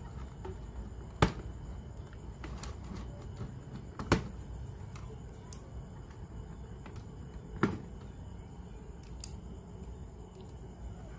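Three sharp clicks or knocks a few seconds apart, with a few fainter ticks between them, over a low steady hum.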